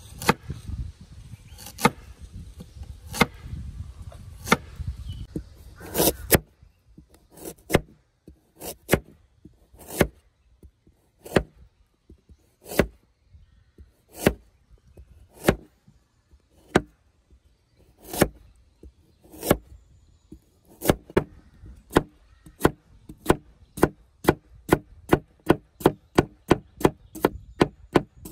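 A blade chopping into wood, one sharp stroke at a time: about one stroke a second at first, speeding to two or three a second near the end. A low rumble lies under the first few strokes and stops about six seconds in.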